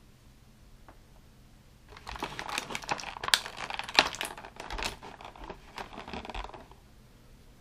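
Thin clear plastic packaging crinkling and crackling as hands handle and pull at a toy figure's wrapping. It starts about two seconds in, runs for about five seconds with many sharp crackles, and stops near the end.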